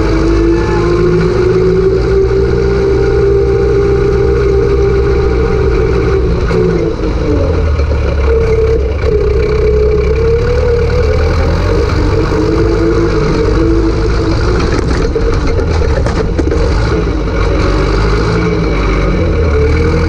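Zetor 4011 tractor's four-cylinder diesel engine running under load, heard close up from the tractor itself. Its pitch climbs over the first few seconds, drops briefly about seven seconds in, then rises and falls through the rest.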